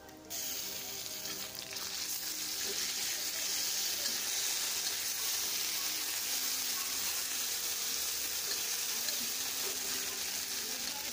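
Wet green chilli paste sizzling loudly in hot mustard oil with fried garlic in a karai, the sizzle starting suddenly just after the start as the paste hits the oil, then holding steady while it is stirred with a spatula.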